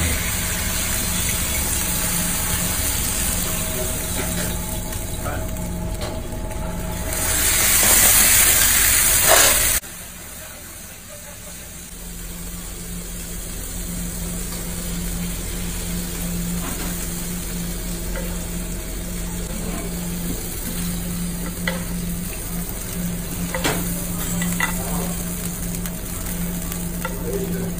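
Red mullet frying in a pan of hot oil: a steady sizzle that swells loud for a couple of seconds about seven seconds in and cuts off suddenly, then builds again. A few light clicks of metal tongs near the end.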